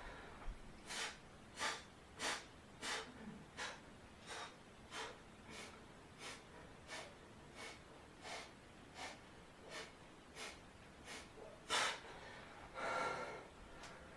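A man breathing in short, even breaths, about three every two seconds, while exercising with a light bar. One breath near twelve seconds is louder, and a longer breath follows it.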